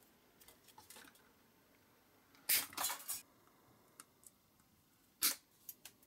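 Pliers and small metal parts clicking and clinking as a tiny wire piece is handled at the bench: a short clattering run of clicks in the middle and a single sharp click near the end.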